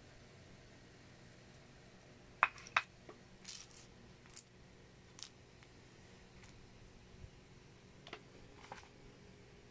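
Loose Lego plastic pieces clicking and clattering against each other and the tabletop as a hand picks through them: a scatter of sharp clicks, the loudest two close together about two and a half seconds in.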